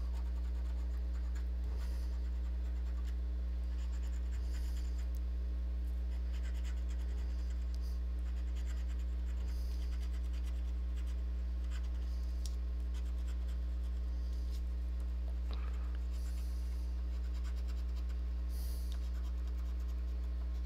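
A coin scratching the latex coating off a paper scratch-off lottery ticket, in faint intermittent rasping strokes, over a steady low hum.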